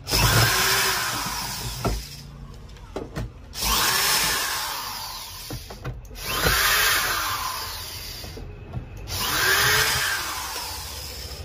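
Cordless electric drill-driver backing screws out of an induction cooker's plastic base, in four runs a few seconds apart.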